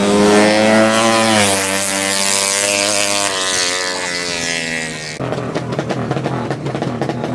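A 200cc sleep-engine drag bike at full throttle: one high-pitched engine note, loudest early on, drops in pitch at about a second and a half as the bike passes and runs away. About five seconds in it cuts off suddenly to a rough, unpitched background noise.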